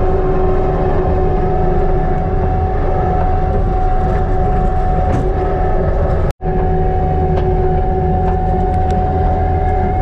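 Kubota SVL95-2s compact track loader's diesel engine running steadily with a steady whine over a low rumble, heard from inside the cab as the machine travels. The sound cuts out for an instant about six seconds in.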